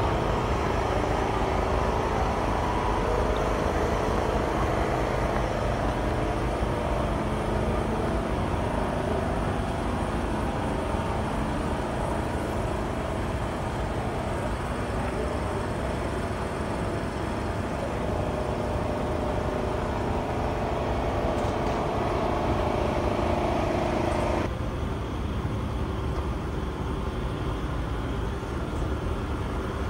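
Steady outdoor street noise with a low engine-like rumble, like distant road traffic. About three-quarters of the way through, the sound changes abruptly and the mid-range hum drops away.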